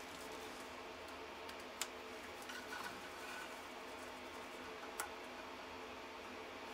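Galvanized chicken wire being handled and twisted by hand: faint metallic ticks and rustles, with two sharp clicks about two and five seconds in, over a steady low hum.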